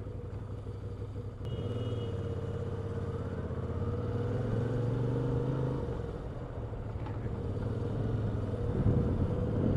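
Moto Guzzi V7 II Stone's air-cooled V-twin engine running steadily under a rider in slow city traffic. The engine grows louder about a second and a half in, eases off after about six seconds, and picks up again near the end.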